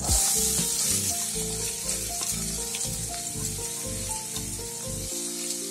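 Chopped onions tipped into hot oil in a pan, sizzling as they start to fry, over background music.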